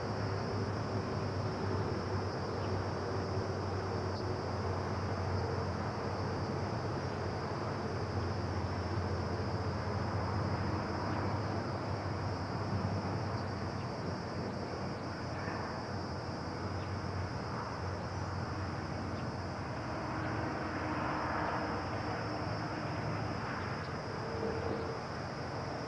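Steady outdoor background: a constant high-pitched insect drone over a low hum, with a few faint soft sounds in the second half.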